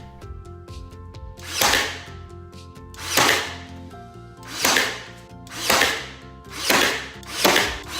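Background music, with about six rough rubbing or scraping strokes on wood, each rising and fading within half a second at uneven intervals.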